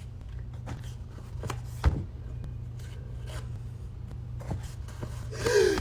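Soft rubbing and scraping of rolled toilet paper worked inside a nostril to set off a sneeze, over a low steady hum. Near the end a voiced "ah" breath with falling pitch builds up as the sneeze comes on.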